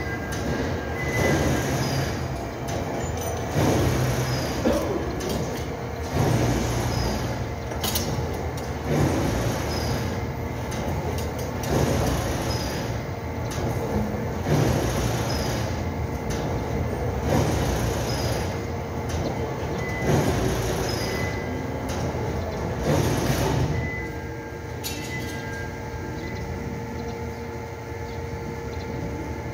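Carton-box factory machinery running, a steady mechanical clatter with a regular heavier surge about every second and a half; the rhythm stops about 24 seconds in, leaving a lower steady hum.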